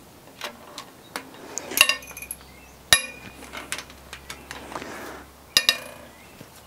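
Wrench breaking tight cylinder-head bolts loose on a Honda K20 engine: sharp metallic pops and clinks with lighter ticks between. The loudest snaps come about three seconds in and again about five and a half seconds in, each with a brief ring.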